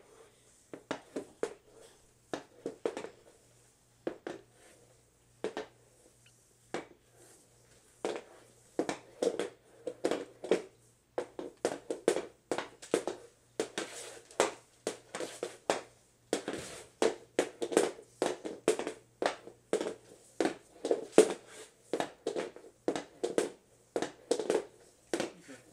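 Hockey puck and stick blade clacking as the puck is stickhandled back and forth on a whiteboard sheet: a run of sharp taps, scattered for the first several seconds, then quick and steady at about two to three a second from about eight seconds in.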